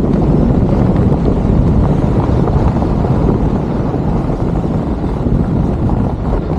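Wind buffeting the microphone of a downhill skier's point-of-view camera, a steady loud rushing, with the skis running over packed, groomed snow underneath.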